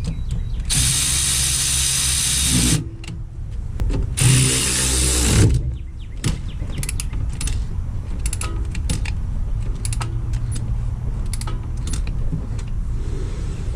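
A power tool run in two bursts, about two seconds and then about a second and a half long, followed by a series of light clicks and clatter of tools being handled.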